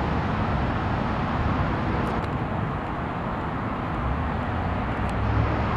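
Vehicle engines running steadily: a low hum under a constant rush of road noise, with a couple of faint ticks.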